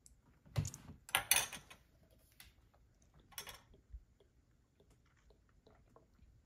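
A plastic activator bottle and a plastic measuring spoon being handled: about four short clattering knocks and rustles, the loudest about a second in, then faint small clicks.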